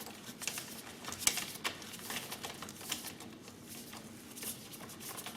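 Irregular light metallic clicks and taps of an Allen key and spanner working on handlebar clamp bolts, with a couple of sharper clicks about a second and a half in.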